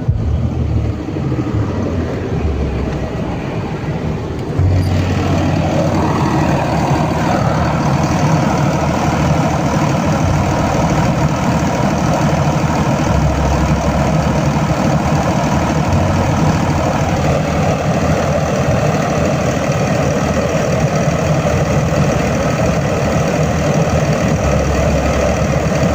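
Generator engine running steadily. About five seconds in it gets noticeably louder and fuller, then holds at that level.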